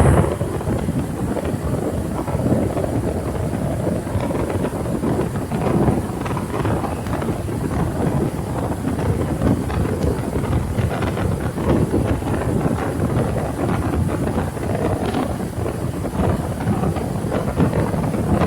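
Earthquake sound effect: a steady low rumble with a rough, rattling texture.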